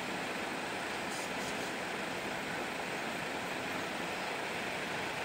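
Heavy truck rolling slowly on a wet road: a steady, even rush of engine and tyre noise.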